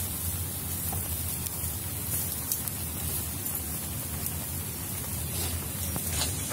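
A steady hiss of meat sizzling over an open wood fire, mixed with falling rain, with a few sharp crackles from the fire.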